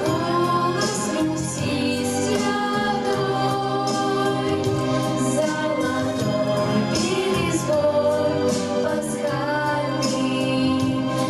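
Two girls singing a song in duet over an instrumental backing track with a steady beat.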